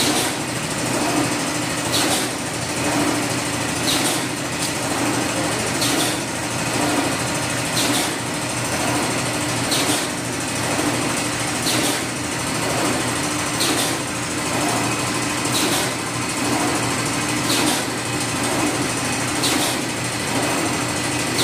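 Paper straw making machine running steadily: a continuous motor hum with a sharp click about every two seconds, the cutter chopping the wound paper tube into straw lengths.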